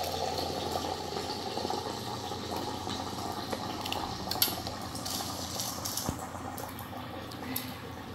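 Water heating in an electric hot-water dispenser: a steady boiling hiss with a faint electrical hum, and a few light clicks scattered through the middle.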